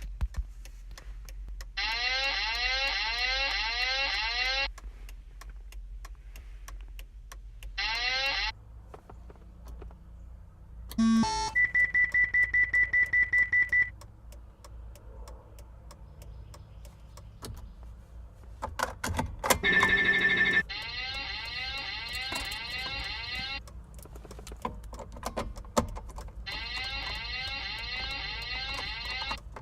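Fire alarm sounder in a car cabin sounding in repeated bursts of about three seconds: a rising sweep that repeats several times a second. Near the middle, a high beep pulses rapidly for about three seconds, followed shortly by a brief cluster of tones and clicks.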